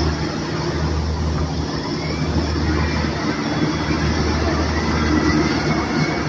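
Crushed coal flowing and sliding down into the draining hollow of a barge's cargo pile during unloading: a steady grainy rattle over a low, steady hum of the unloading machinery.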